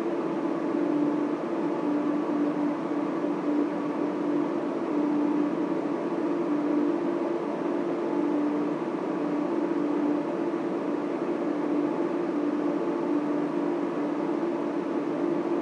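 Data center machine-room noise: the steady, dense whir of server and cooling fans, with a low hum that wavers slightly.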